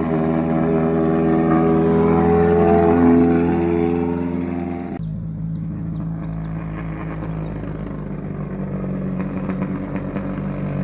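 A car engine running loud, swelling to its loudest about three seconds in and easing off. About five seconds in it cuts suddenly to another engine running steadily at a lower pitch.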